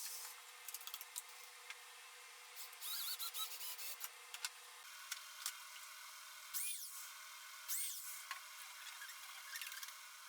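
Woodworking tool working wood: uneven bursts of scraping with sharp clicks, and a couple of high squeaks about two-thirds of the way through.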